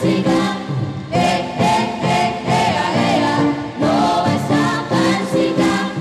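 A choir singing a hymn together over instrumental accompaniment.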